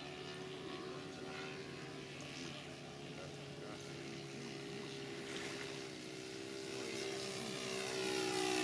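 Radio-controlled model floatplane's motor and propeller droning steadily in flight overhead, growing louder near the end as the plane comes closer.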